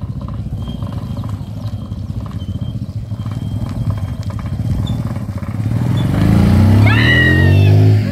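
Small motorcycle engine running as the bike approaches and passes close by. It grows steadily louder, is loudest in the last couple of seconds, and its pitch dips as it goes past.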